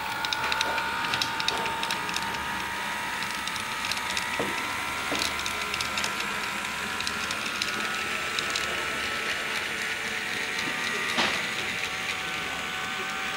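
HO scale model train running on layout track: a steady whine runs throughout, with irregular clicks as the wheels cross rail joints and points and one louder knock about eleven seconds in.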